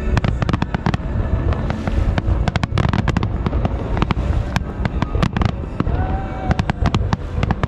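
Aerial fireworks display: a rapid barrage of overlapping shell bursts, many sharp reports a second with crackling, over a continuous low booming rumble.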